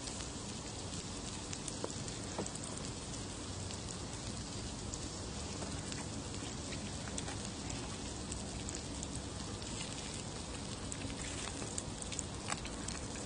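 Pork belly slices sizzling on a hot grill pan: a steady hiss with scattered small crackles, a few more of them near the end.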